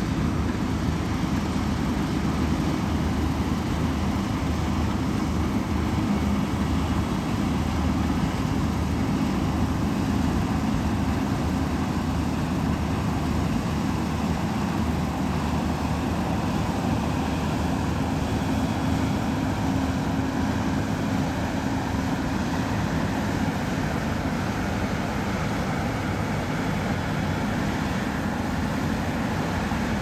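New Holland CX8.90 combine harvester running steadily while harvesting wheat: its engine and threshing machinery make a continuous, even mechanical noise with a low hum underneath.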